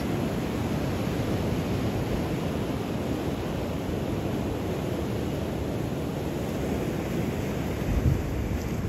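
Ocean surf washing steadily onto the beach. Near the end, wind buffets the microphone with low rumbling gusts.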